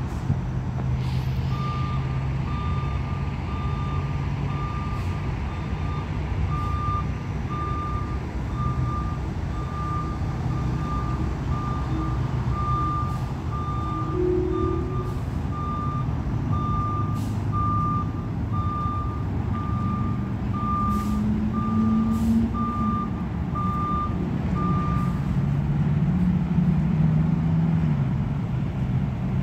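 Backup alarm of a Peterbilt 520 front-loader garbage truck beeping steadily about once a second as the truck reverses, over the idling diesel engine. The beeping stops a few seconds before the end, and the engine note rises as the truck pulls away.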